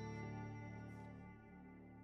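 Soft background music fading out, sustained notes dying away.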